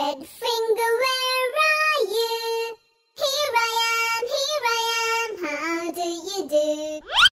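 A child's voice singing a wordless tune in held, sliding notes, with a short break partway through and a quick rising swoop near the end.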